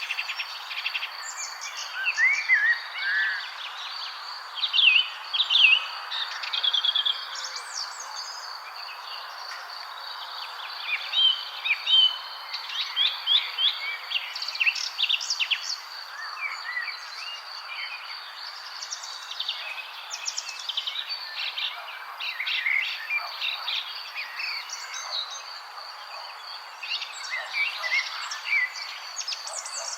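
Several songbirds chirping and singing in quick, overlapping phrases of short notes and rapid glides, over a steady high-pitched tone and an even background hiss.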